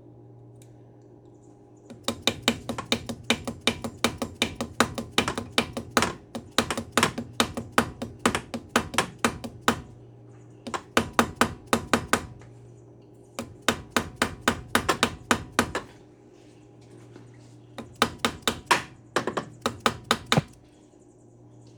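Quick hammer taps on metal, about five or six a second, in runs of a few seconds with short pauses between: a press-in AN breather fitting being tapped into the valve cover.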